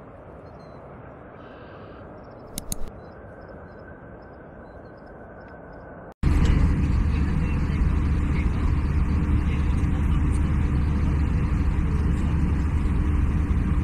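Faint steady background noise, then a sudden cut about six seconds in to the loud, steady cabin drone of an Airbus A320-family airliner in cruise, heard at a window seat over the wing and engine.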